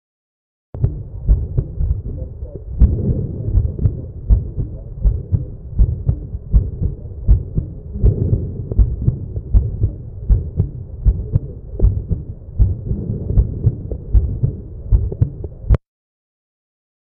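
Recorded stethoscope heart sounds: steady, repeated heartbeat thumps with a continuous rough noise filling the gaps between beats, starting shortly after the beginning and cutting off abruptly near the end.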